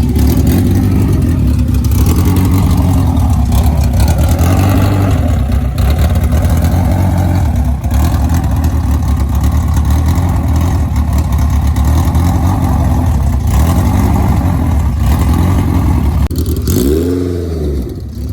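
Car engine running loudly under throttle, with a low exhaust rumble; near the end it revs up and falls back once.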